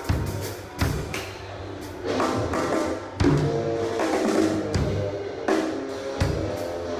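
Pearl Roadshow 5-piece drum kit being played, with bass drum, snare and crashing cymbals struck in a steady groove and the drums ringing after the accents.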